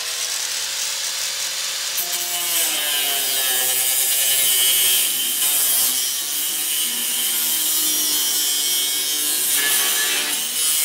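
Angle grinder with a metal cut-off disc cutting through the steel tubing of an IBC tote cage: a steady, loud high-pitched grinding hiss over the motor's whine, getting harsher about two seconds in as the disc bites into the metal.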